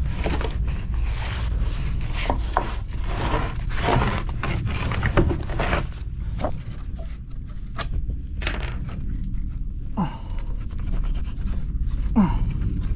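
Irregular scraping and knocking from handling wood and building materials, over a steady low rumble.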